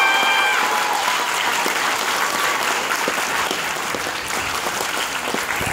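Audience applauding steadily, with the last held tones of the dance music fading out in the first second.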